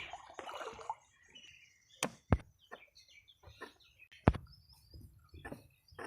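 A few sharp knocks, the loudest about two seconds in and again just past four seconds, among lighter irregular taps, with birds chirping in the background.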